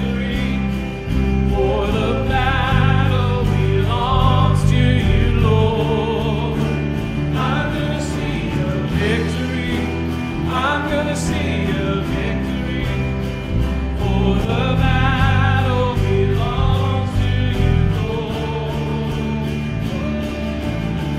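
Live worship band playing, with acoustic guitars, bass guitar, drums and keyboard, and voices singing over the band.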